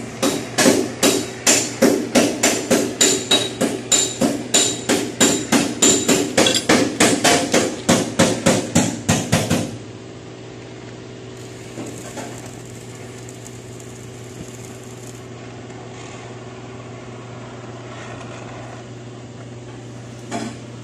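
Quick, even hammer blows on a car's sheet-metal body panel, several a second with a metallic ring, stopping about ten seconds in. After that a steady hiss with a low hum remains.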